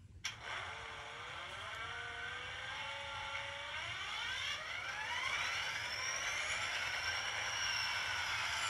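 Small electric motor of an N scale model locomotive starting with a click, then whining and rising steadily in pitch as it speeds up, levelling off to a high, steady whine for the last few seconds.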